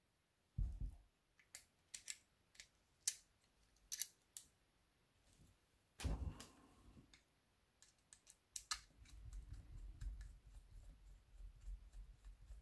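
Faint, scattered clicks and taps of small plastic toy parts being handled as a battery is fitted into a Playmobil blue-light bar, with a dull knock about half a second in and another about six seconds in.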